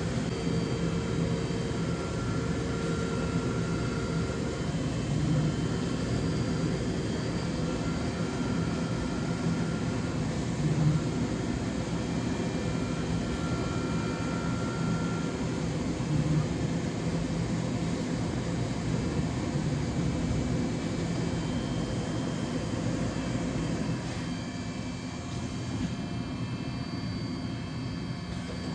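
DMG Mori DVF 5000 5-axis CNC mill running a cut: a steady machine noise with a low hum, and a higher tone that comes and goes a few times. The noise eases slightly near the end.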